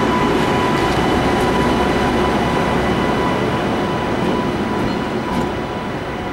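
Indian Railways electric locomotive running on the line: a steady rumble of wheels on rail with a steady high electrical whine, easing a little in loudness toward the end.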